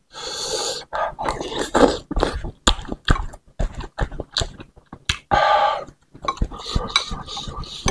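Close-up mouth sounds of a man eating spicy bakso: huffing breaths blown out through pursed lips against the chili heat of the sambal, among smacking and wet clicking mouth noises.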